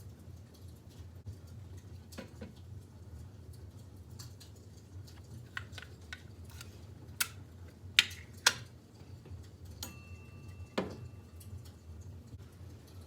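Scattered light clicks and taps over a low steady hum, with two sharp knocks about eight seconds in and a last knock with a brief ringing tone near the end.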